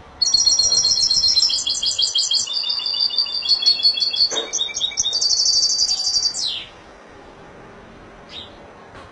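European goldfinch singing one long, fast phrase of twittering trills and chirps, lasting about six seconds and ending in a quick downward slur. A single short faint call follows near the end.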